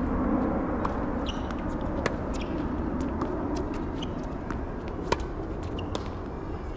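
Tennis ball struck by racquets and bouncing on a hard court during a rally: a series of sharp pops, the loudest about five seconds in, over a steady low outdoor rumble.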